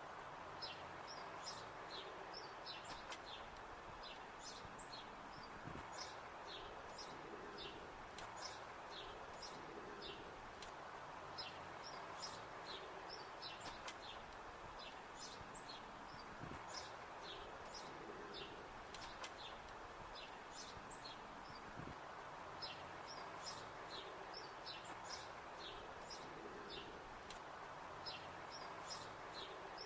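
Small birds chirping, many short high chirps repeating throughout, over a faint steady outdoor background hum.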